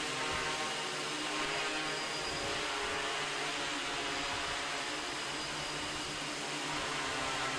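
MikroKopter multirotor drone hovering: its electric motors and propellers whir and whine steadily, the tones wavering slightly as it holds position.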